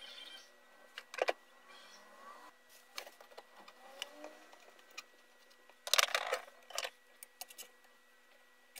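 Scattered clicks and knocks of a screwdriver and metal parts on an electric planer being reassembled by hand, with a louder burst of clattering about six seconds in.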